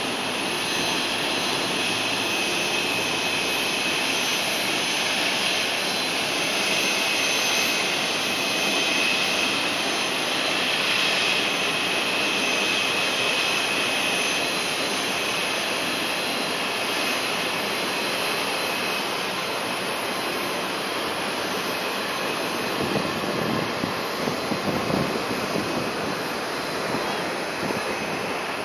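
Aircraft engine running steadily at an airport apron: an even rush with a thin high whine held throughout. Some low, uneven buffeting comes in about three-quarters of the way through.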